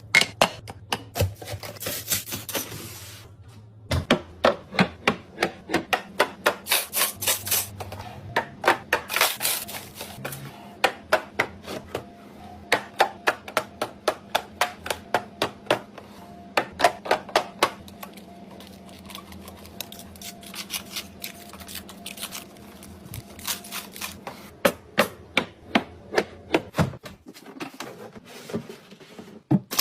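Rapid clicks and taps of items and containers being handled and set down, several a second in bursts, with short rubbing sounds between.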